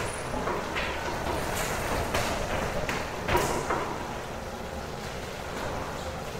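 Steady hum of a food-processing plant's machinery and ventilation, with a handful of short knocks and clatters in the first half, the loudest about three seconds in.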